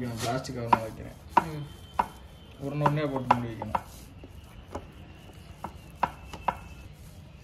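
Irregular sharp knocks on a kitchen work surface, about a dozen spread unevenly, with low voices murmuring twice in between.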